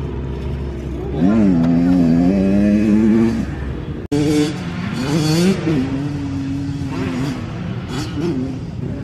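Dirt bike engine revving on a motocross track, the pitch climbing and dropping as the rider works the throttle and gears. The sound cuts off abruptly about four seconds in and picks up again with another stretch of revving.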